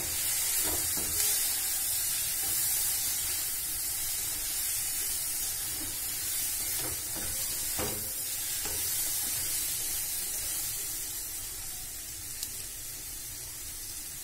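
Mushrooms, capsicum and onion sizzling in butter in a wok, being stir-fried with a plastic spatula: a steady frying hiss with a few scrapes and taps of the spatula against the pan.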